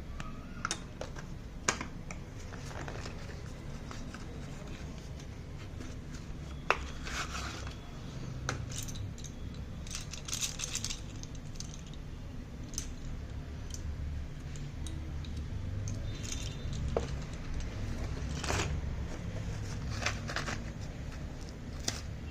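Packaging and boxes of slate pencils handled by hand: scattered sharp clicks and taps with short rustling or tearing sounds, over a low steady hum.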